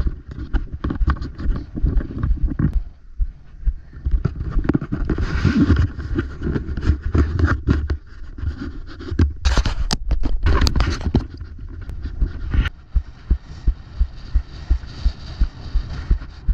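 Footsteps on a sandy path heard through a body-worn action camera, as dull low thumps with scraping and rustling between them. Near the end the steps settle into an even walking rhythm of about two a second, over a steady hiss.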